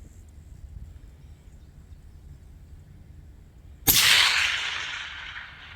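A single rifle shot about four seconds in: a sharp crack followed by about a second and a half of echo dying away across the open range.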